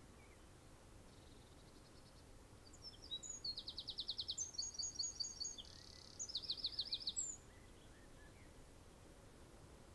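A small songbird sings a burst of rapid, high-pitched trills and chirps, starting about three seconds in and lasting about four seconds, over a faint steady background hiss.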